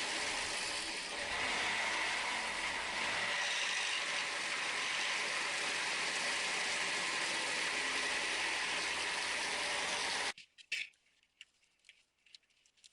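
Toyota Corolla's 4ZZ-FE 1.4-litre four-cylinder engine running with a steady mechanical rattle, the bad engine noise of an engine that has been losing oil pressure. The sound cuts off suddenly about ten seconds in, leaving a few faint clicks.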